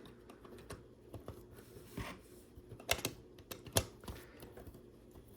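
LEGO plastic pieces being handled and pressed together: small scattered clicks and taps, with three sharper clicks about two, three and nearly four seconds in.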